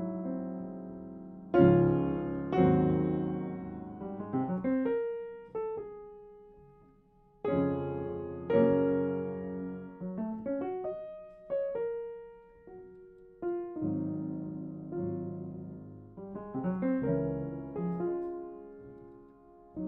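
Upright piano played solo, a classical piece: loud struck chords about one and a half and two and a half seconds in, then a few single notes left ringing and fading almost to nothing, before another loud chord about seven and a half seconds in and a run of further phrases.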